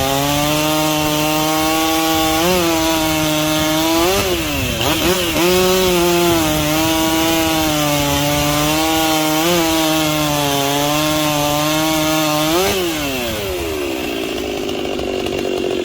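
Ported two-stroke Stihl 034 chainsaw, converted to a 61.5 cc 036, running at high revs while cutting wood, its pitch sagging and recovering several times under load. About thirteen seconds in the revs drop off to a lower, rougher note.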